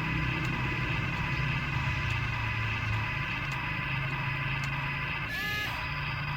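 Steady whine and hum of a radio-controlled model vehicle's small electric motors and gearing, with a brief harsher rasp about five seconds in.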